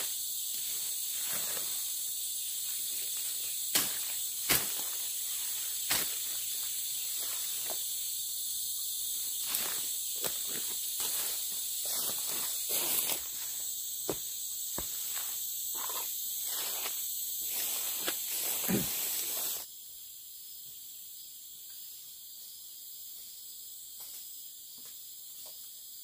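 Rainforest insects keep up a steady high drone while fern fronds rustle, with several sharp snaps as they are grabbed and torn off for a bundle. About twenty seconds in the rustling and snapping stop and the insect drone goes on, quieter.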